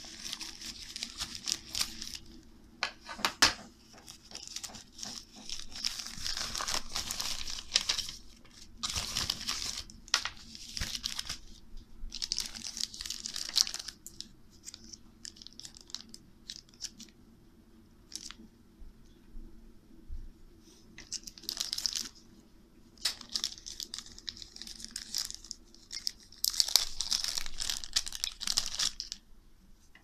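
Plastic packaging crinkling and tearing by hand in irregular bursts, with a few sharp clicks: a plastic mailing envelope and then a small clear plastic bag being opened.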